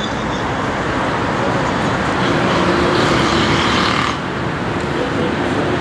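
Steady road traffic noise, which swells louder for a couple of seconds in the middle and then drops back.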